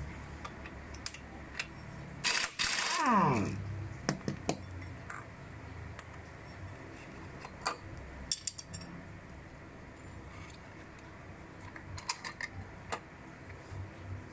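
Impact wrench runs briefly about two seconds in and spins down with a falling whine as it loosens the variator nut on the crankshaft of a Yamaha Mio Sporty scooter. It is followed by scattered light metallic clicks and clinks as the drive face and pulley parts are pulled off and handled.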